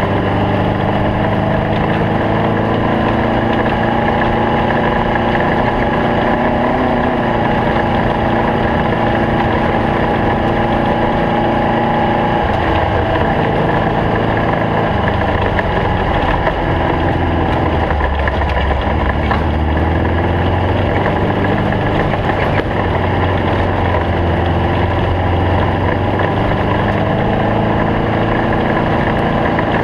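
Stock Bug desert race car's air-cooled VW flat-four engine running continuously under way, its pitch shifting up and down a few times as the revs change.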